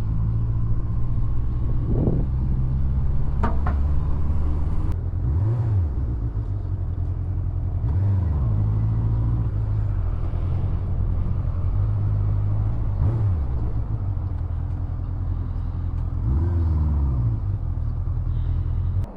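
Honda CBF inline-four motorcycle engine running under way, heard from the rider's position; the engine note dips and climbs back up four or five times as the throttle is rolled off and on.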